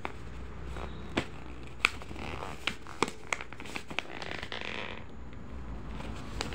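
Fingers handling a plastic debit card on its paper card-carrier, working the card loose from the glue that holds it: scattered sharp clicks and taps, with two short stretches of paper scraping.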